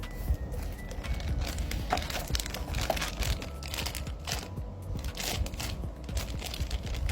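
Plastic packaging crinkling and rustling in irregular handfuls as it is handled.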